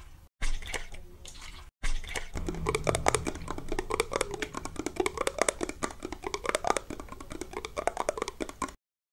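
Close-miked ASMR trigger sounds: a dense run of crisp clicks and crackles right at the microphone, with a low rumble under it. It starts after a couple of brief cuts and stops abruptly near the end.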